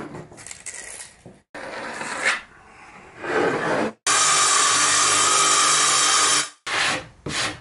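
Power saw running steadily as it cuts a sheet of structural plywood, for about two and a half seconds from near the middle, starting and stopping abruptly. Before it, soft scraping and rubbing of a tape measure and pencil on the board.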